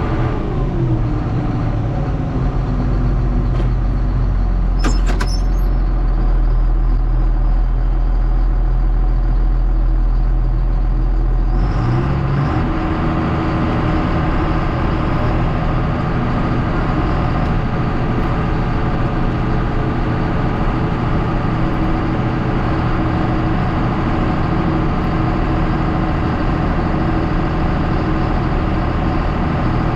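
Heavy farm diesel engine running steadily, with a falling note at the start and a few brief clicks about five seconds in. About twelve seconds in the engine note changes abruptly, then carries on steadily.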